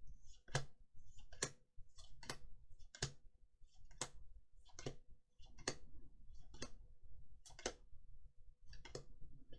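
Magic: The Gathering trading cards being flipped through one at a time, each card making a short sharp snap, about a dozen at uneven intervals.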